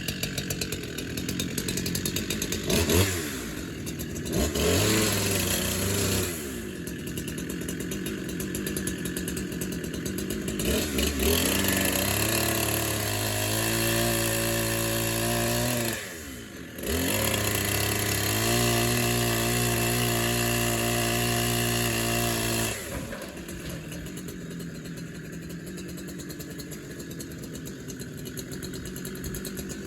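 Chainsaw engine revving up and down in short bursts, then held at high revs for about ten seconds with a brief drop halfway. It then falls back to a steady idle for the last several seconds.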